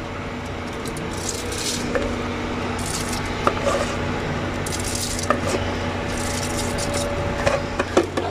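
Soaked rice sliding out of a plastic bowl into a pot of simmering masala water, coming in several short hissing pours, with a few sharp knocks as the bowl is tapped to shake the rice loose. A steady low hum runs underneath.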